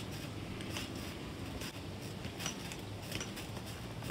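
Trampoline bouncing with a trampoline scooter: light clicks and creaks roughly once a second as the rider bounces on the mat, over a steady low hum, with a sharp knock at the very end.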